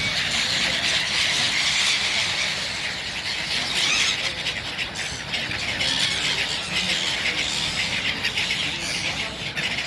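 A flock of birds calling all together at feeding time: a continuous din of many overlapping short, high chirps and squeals.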